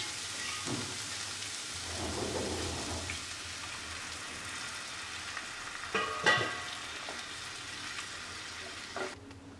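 Mixed vegetables sizzling and hissing steadily in a nonstick pan as a cup of water goes in and the mix is stirred with a wooden spatula; the sizzle cuts off just before the end.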